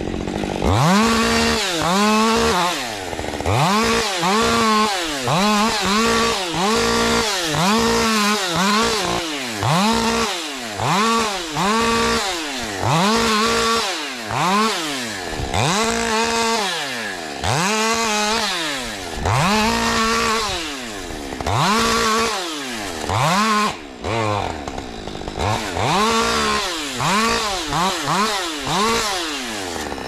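Husqvarna 550 XP Mark II 50 cc two-stroke chainsaw revved to full throttle and released in short bursts, about once a second, each rev held briefly before the engine drops back.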